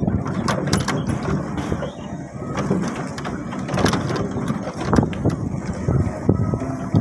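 A vehicle riding over a rough, unpaved sandy road: continuous rumble with scattered rattles and knocks from the bumpy surface.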